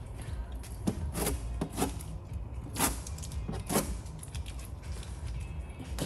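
A few short rubbing swipes, irregularly spaced, as a hand presses and smooths the edges of a vinyl stripe onto a car's painted body panel, over a low steady hum.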